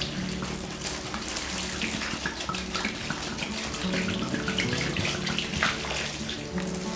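Brine water gurgling and splashing inside a large plastic brining bag holding a whole turkey, as the bag is filled and handled.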